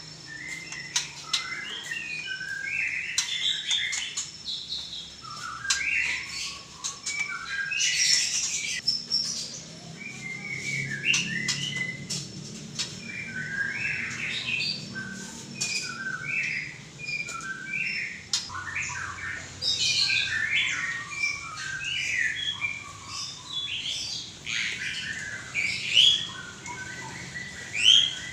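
White-rumped shama (murai batu) singing a long, varied song of whistled phrases and rapid notes, with sharp clicks mixed in between the phrases.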